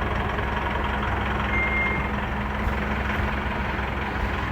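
Mahindra Bolero turbo-diesel engine, fitted in a Willys jeep, idling steadily. A short high tone sounds briefly about one and a half seconds in.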